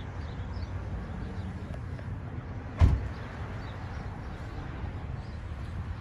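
Steady low running noise of a Carrier Gemini commercial air-conditioning condensing unit, with a single sharp thump about three seconds in.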